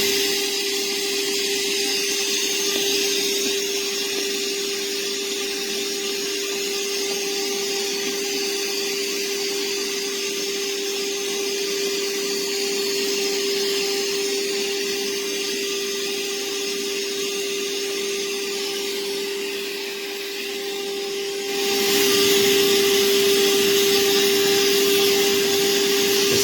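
DEWALT DCV580H 20V MAX cordless wet-dry vacuum running: a steady motor whine over the rush of air. About 21 seconds in it grows louder and stays so.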